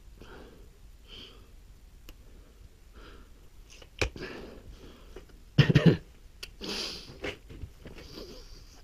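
Crosman Venom Dusk break-barrel nitro piston air rifle being cocked and readied: a sharp click about four seconds in, then a louder short clunk of several knocks near six seconds, followed by a brief rustle and another click.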